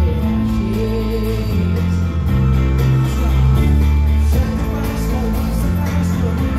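Live rock band playing loudly: drums and cymbals, guitar and bass, with singing.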